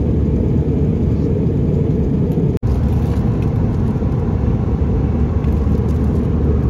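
Steady low rumble of an Airbus A320's engines and rushing air, heard inside the cabin in flight. The sound cuts out for an instant about two and a half seconds in.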